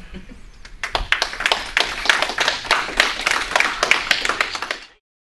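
Audience applauding, starting about a second in and cutting off abruptly near the end.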